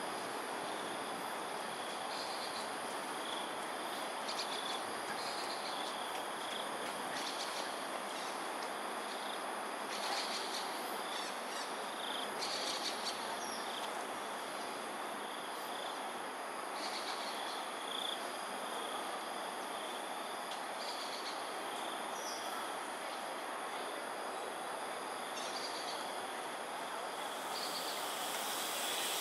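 Insects chirping: a steady high-pitched drone with shorter chirps coming and going throughout, over a steady hiss of background noise.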